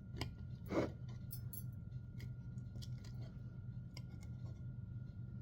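Knife cutting through a baked stuffed chicken breast: a few short scrapes and clicks, the loudest about a second in, over a steady low hum.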